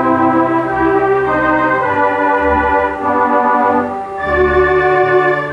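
Wurlitzer theatre pipe organ playing sustained chords over a steady bass, with a moving upper line and a chord change about four seconds in.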